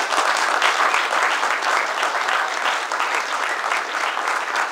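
An audience applauding: many people clapping together in a dense, steady patter.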